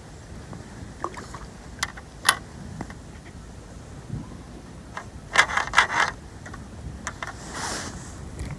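Steady low wind rumble on the microphone beside the water, with a few sharp clicks and a cluster of short scraping handling noises a little past the middle, as fishing tackle is handled.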